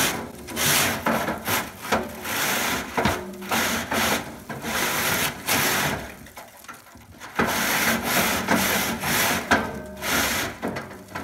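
Chimney sweep's brush scraping up and down inside the range's flue, dislodging soot, in a run of rasping strokes with a lull around the middle.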